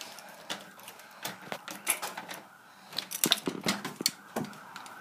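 Irregular clicks and knocks of handling noise as a handheld phone camera is carried and bumped about, with a quick run of them a little past halfway.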